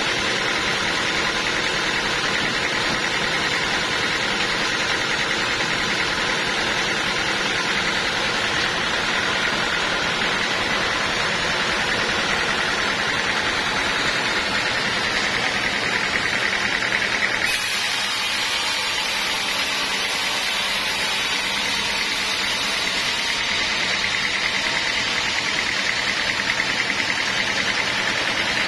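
Sawmill saw running steadily: a continuous loud mechanical hiss with a faint high whine, its tone shifting slightly a little past halfway.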